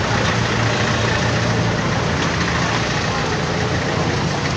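Busy street ambience: steady traffic with an engine idling as a low drone, mixed with indistinct chatter of people passing.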